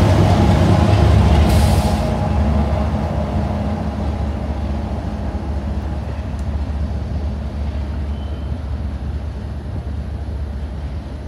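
Kansas City Southern diesel freight locomotives passing close with a low engine rumble, then fading steadily as the train draws away.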